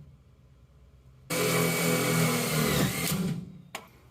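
Power drill running in one burst of about two seconds and winding down as it stops, driving in the fasteners that mount a fuel filter. A single sharp click follows near the end.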